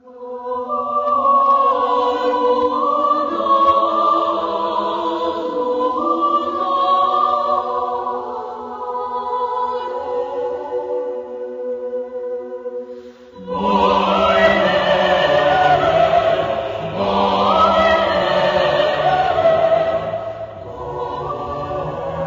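Choir singing slow, sustained chords. About 13 seconds in, the singing dips briefly, then a fuller, louder passage with lower voices comes in.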